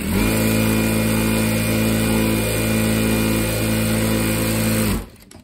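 Daisen DS-R1 industrial lockstitch sewing machine stitching through fabric, a loud steady run that comes up to speed at once and stops after about five seconds. The machine is being pushed harder than it should be.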